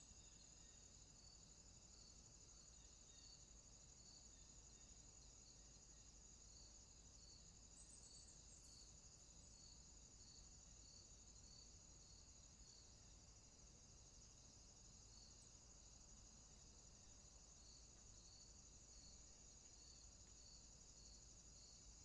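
Near silence: a faint steady high-pitched whine with a faint, evenly spaced chirp a little under twice a second.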